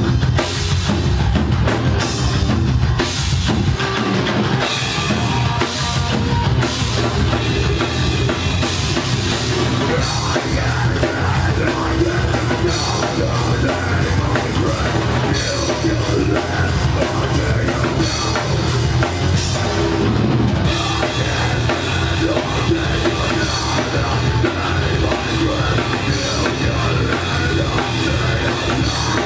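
Heavy metal band playing live: electric guitars over a drum kit, loud and continuous.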